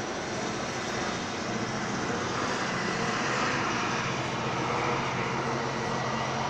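A passing vehicle's engine noise: a steady rushing hum that grows louder toward the middle and eases off slightly near the end.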